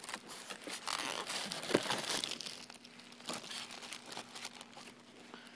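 Packaging crinkling and rustling as a boxed HO-scale model locomotive is pulled out of its packing, busiest in the first half and tapering off after about three seconds.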